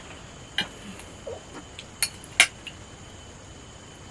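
A few short, light clinks of a metal spoon against a plate and bowl, the loudest about two and a half seconds in. A faint steady high-pitched tone runs behind.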